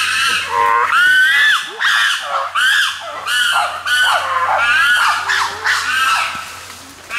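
Chimpanzees screaming: a loud run of high-pitched calls, each rising then falling, about two a second, dying down near the end.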